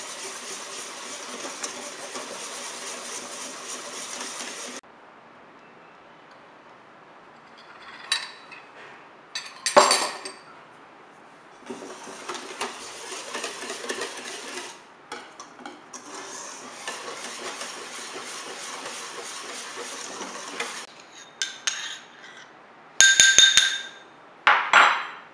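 Wire balloon whisk beating a thin custard base in a stainless steel bowl: rapid scraping and clinking of wire on steel in three stretches of a few seconds each, with short pauses. Single clinks of the whisk against the bowl fall in the pauses, and several sharper, ringing clinks come near the end.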